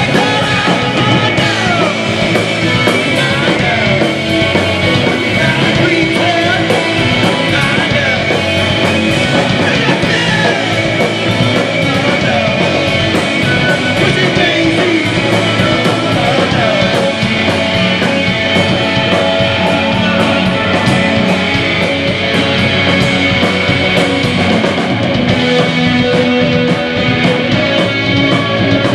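Live post-punk rock band playing loud: two electric guitars, electric bass and a drum kit, with a man singing into the microphone.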